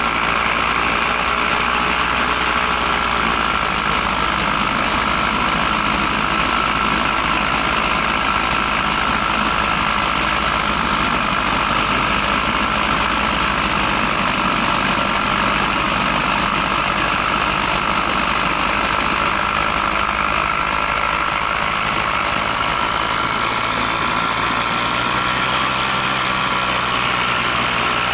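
Paramotor engine and propeller running steadily in flight: a continuous engine drone with a steady high tone riding over it.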